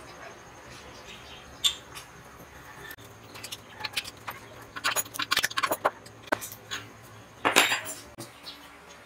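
Brass flare-nut fitting being threaded on and tightened with a small metal wrench: scattered metal clicks and clinks, busier about five seconds in, with a louder clank about three-quarters of the way through.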